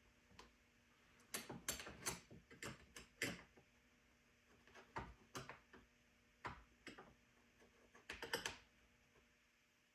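Faint, sharp metal clicks and taps in short irregular clusters: a scrench being handled and worked on a chainsaw's chain tensioner and bar while the chain is tightened.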